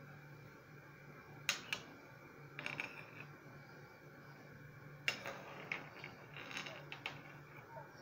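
A metal spoon clinking and scraping against a pot while skimming foam off boiling beef broth, in a few scattered clusters of sharp clicks over a low steady hum.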